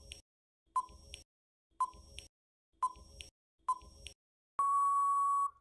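Countdown timer sound effect: four short, high pings about a second apart, then a steady electronic beep lasting about a second near the end that marks time running out.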